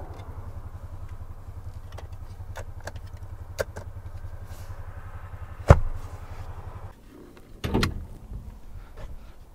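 Small plastic clicks and one sharp knock about two-thirds of the way through as a car's centre armrest and cup-holder cover are handled, over a steady low hum inside the cabin. The hum stops about seven seconds in and a brief dull sound follows.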